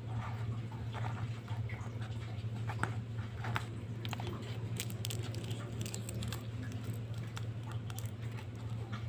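Coloured sand on a sticky sand-art sheet: grains pattering and crackling as they are sprinkled and rubbed in by fingers, with small paper rustles, in a steady run of irregular little clicks. A steady low hum sits under it throughout.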